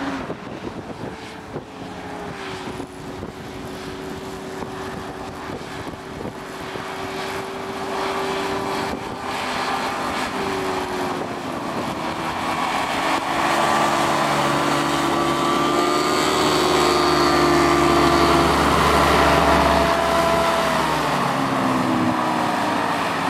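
Engine and ducted thrust propeller of a small recreational hovercraft running under power, growing steadily louder as it comes closer. The engine's pitch rises and falls a few times with the throttle, and the sound is loudest in the last third.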